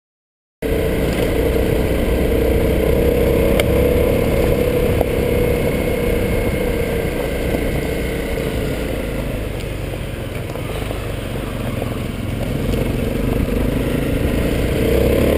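Dirt bike engine running steadily at riding speed, heard from the bike itself over a low rumble. It cuts in just after the start and cuts off abruptly at the end.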